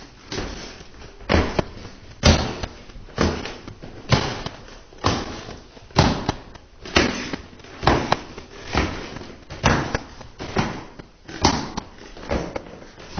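Heavy footsteps on a staircase, a steady walking pace of about one thudding step a second.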